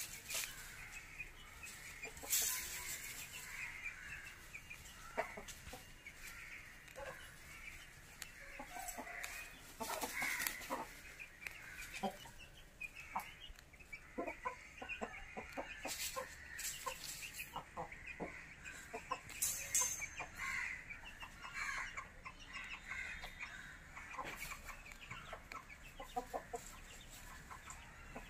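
Aseel chickens clucking on and off in short calls, a few of them sharper and louder.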